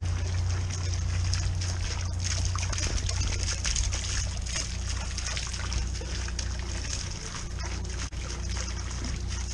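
Small garden fountain splashing and trickling into its stone basin, a steady patter of water over a constant low rumble.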